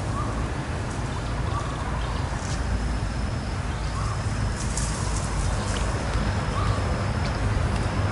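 Outdoor ambience: a steady low rumble, with a short faint call repeating about every one and a half seconds and a thin high whine through the middle.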